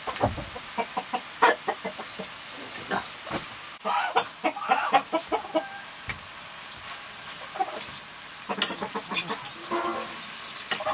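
A chicken clucking in short calls, over a run of quick clicks and scrapes from a steel ladle stirring leafy greens in an iron wok during the first few seconds.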